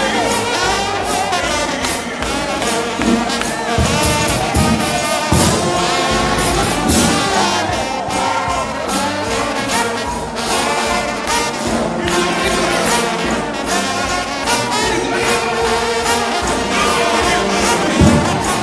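Trombone shout band playing gospel music: many slide trombones in harmony, with gliding notes, over a steady percussion beat.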